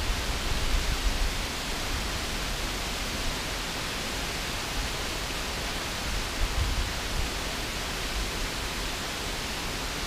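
Steady rush of water pouring over a broad, low waterfall. Low buffeting rumbles swell about a second in and again around six and a half seconds.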